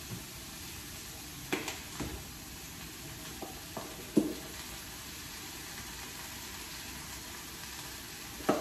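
Food sizzling steadily in a pan on the stove, with a handful of short knocks and clinks of a utensil against the cookware, the loudest about four seconds in.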